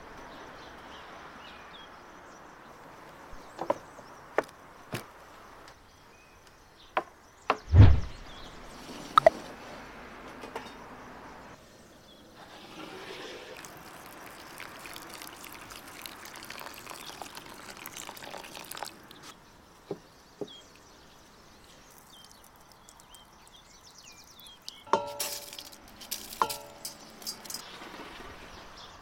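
Cooking sounds in quick succession: a few knocks and one heavy thump, then water pouring onto dry rice in a wooden bowl for several seconds, and near the end a few ringing metallic clinks of stainless steel pots and lids.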